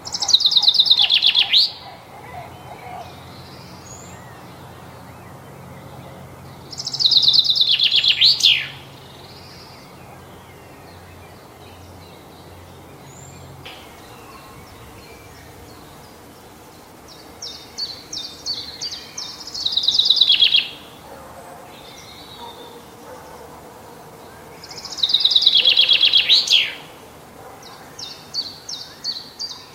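Common chaffinch singing: four song phrases, each a fast rattling run of notes that drops in pitch and ends in a quick flourish, repeated every six seconds or so. Between phrases there are runs of short, evenly spaced high notes.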